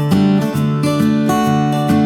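Background music: acoustic guitar played in picked and strummed notes at a steady pace.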